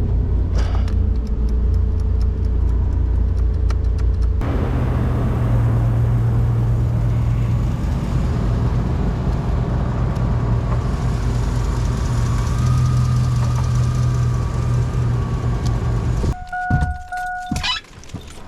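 Toyota 4Runner engine running steadily, then cutting off abruptly about sixteen seconds in: a stall that is not from running out of gas but a straight cut-off. A short electronic beep sounds right after the engine dies.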